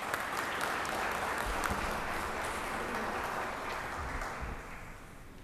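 Audience applauding, many hands clapping at once, dying away over the last second or so.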